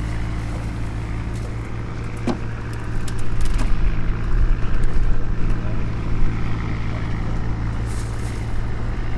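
A boat engine idling steadily with a low, even hum. A few sharp clicks and knocks come over it as fish are handled in plastic crates.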